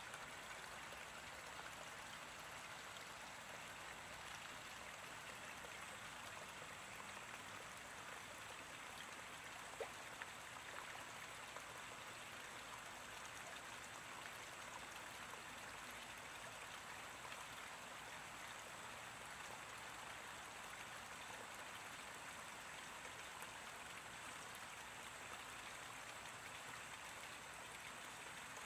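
Faint, steady trickle of running water in a garden koi pond, with one short click about ten seconds in.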